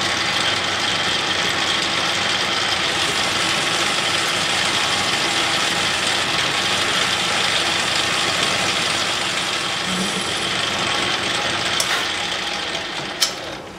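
Metal lathe running steadily, its carbide tool taking a light finishing cut on a cast-iron bar. The sound falls away near the end as the spindle winds down, with a sharp click.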